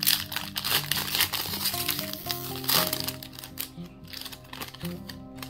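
Foil trading-card booster pack wrapper crinkling as it is torn open, loudest for the first few seconds, then softer rustling as the cards are pulled out. Background music plays throughout.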